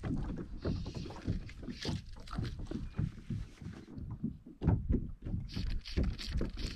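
Fly line being stripped in by hand in short pulls, with brief swishes, over irregular low knocks and water lapping against a plastic fishing kayak's hull.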